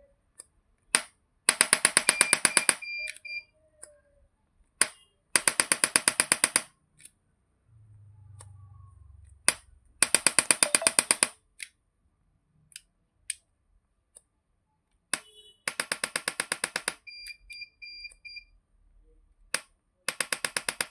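Electric chiropractic adjusting gun firing bursts of rapid impulse clicks, about ten a second for a second and a half at a time, five bursts roughly four seconds apart, each preceded by a single sharp click. Faint short beeps come twice.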